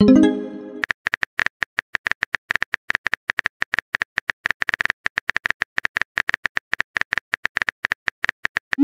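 Simulated phone-keyboard key clicks, rapid and irregular, as a text message is typed out. It opens with a short pitched tone that dies away within a second, and a quick rising send sound comes at the very end.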